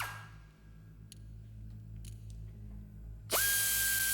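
A small handheld power driver winds down at the very start, then spins up again about three seconds in with a quick rising whine and runs at one steady high pitch. A few light clicks come in between. It is turning the locking cylinders counterclockwise.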